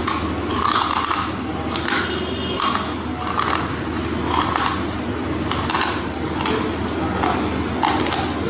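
Crunchy chewing of baked clay pieces, one crunch about every second, over a steady low hum.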